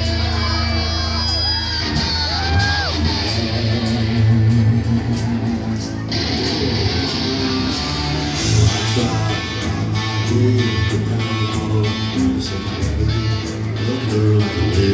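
Live rock band playing an instrumental passage: distorted electric guitars with string bends in the first few seconds, then a repeated riff over bass guitar and drums.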